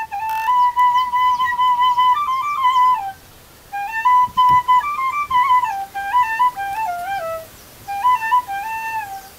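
Background music: a solo flute playing a stepwise melody in short phrases, with two brief pauses between them.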